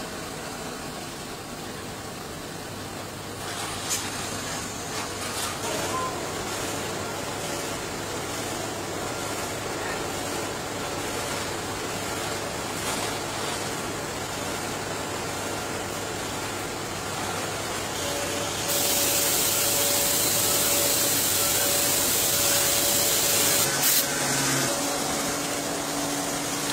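Tyre retreading workshop: a machine hums steadily under scattered clanks and knocks, then compressed air hisses loudly for about five seconds, starting about two-thirds of the way through and stopping suddenly.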